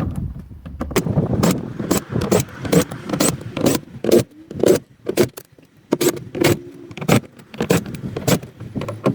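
Metal clinking and clicking while screws are taken out of a truck topper: a run of sharp, irregular clicks, about two a second, with a short lull about five seconds in.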